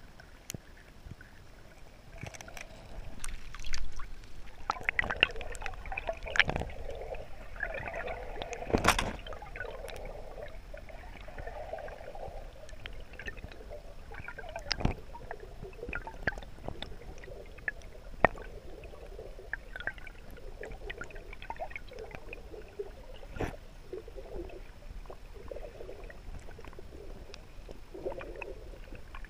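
Water gurgling and rushing past an underwater camera housing as it moves through a lake, heard muffled, with scattered clicks and a few knocks, the loudest about 4 and 9 seconds in.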